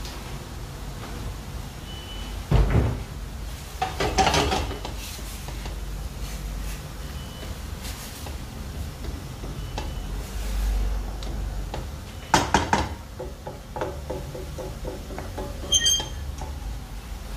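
Kitchen handling sounds over a steady low hum: several knocks of cookware and utensils, and near the end a short metallic clink that rings.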